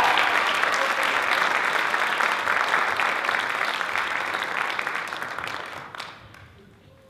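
Audience applause at the close of a dance performance, with many hands clapping. It slowly fades and dies away about six seconds in.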